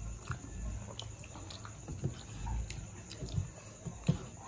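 Close-up eating sounds as soft maize dhido and fish curry are eaten by hand: chewing and lip-smacking, with scattered short soft clicks.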